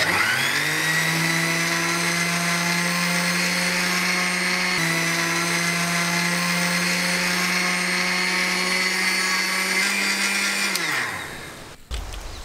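Electric mixer grinder with a steel jar grinding Bourbon biscuits to powder. The motor spins up quickly to a steady high whine, runs for about ten seconds, then is switched off and winds down to a stop.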